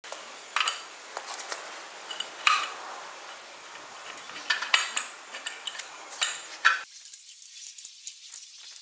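A rusty steel tube being laid into the screw vise of an abrasive chop saw and clamped. Several sharp metal clanks and rattles, with lighter clicks and scrapes between them.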